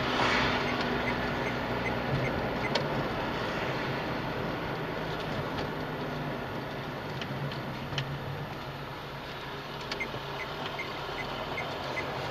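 A car driving through town, heard from inside the cabin: steady engine hum and tyre noise. Two runs of light, regular ticks at about three a second come early on and again near the end, along with a few single clicks.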